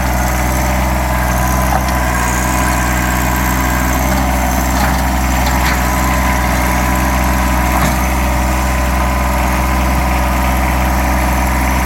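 John Deere 1023E compact tractor's three-cylinder diesel engine running steadily, with a few faint knocks over it.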